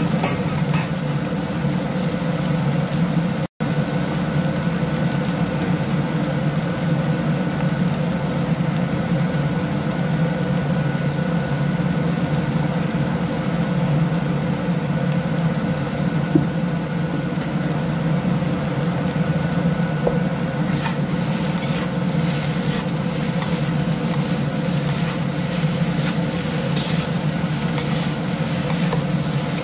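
Fried rice sizzling in a wok over a steady low hum. From about two-thirds of the way in, a spatula scrapes and tosses the rice, clicking repeatedly against the wok.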